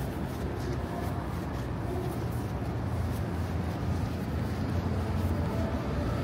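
Steady low rumble of city street ambience, with traffic noise.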